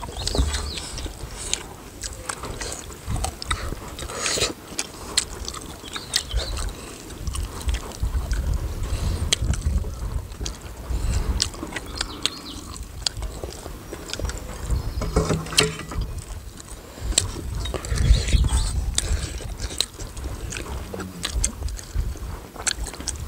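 Eating sounds: hands mixing rice on steel plates, scattered clicks and clinks of steel bowls and cups, and soup being sipped from a bowl, over a low rumble of wind on the microphone.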